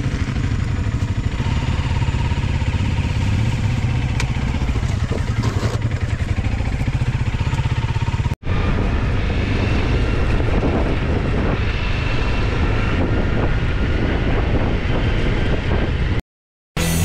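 Single-cylinder dual-sport motorcycle engine running steadily under way on a trail. The sound breaks off sharply twice: once a little past halfway, and for a moment of silence near the end.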